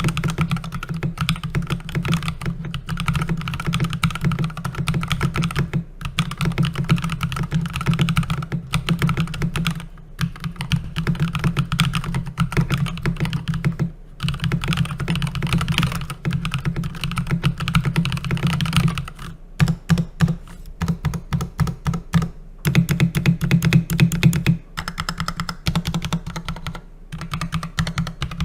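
Keychron K6 mechanical keyboard being typed on in fast, dense runs of keystrokes with short pauses between them. About two-thirds of the way in the typing turns into slower, more separate key presses.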